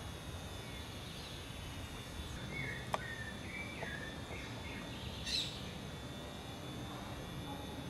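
Outdoor ambience of small birds chirping in short, repeated notes over a steady background hiss, with a sharp click about three seconds in.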